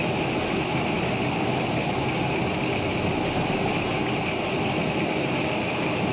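Thick semur sauce with jengkol beans simmering in a wok, a steady, dense bubbling and crackling.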